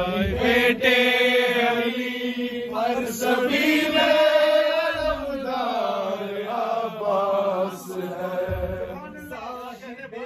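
Men's voices chanting devotional verse (a kalam) together, holding long drawn-out notes, growing quieter near the end.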